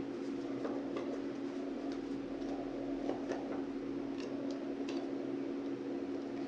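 Steady low hum with faint, irregular light clicks scattered over it.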